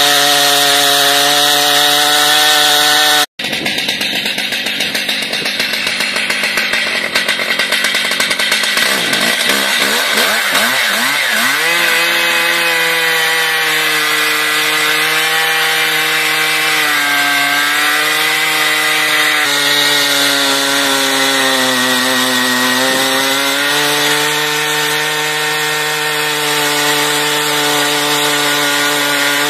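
Two-stroke Stihl chainsaw with a very long bar running at full throttle as it cuts through a huge log, its engine pitch sagging and recovering as the load changes. The sound cuts out for an instant about three seconds in.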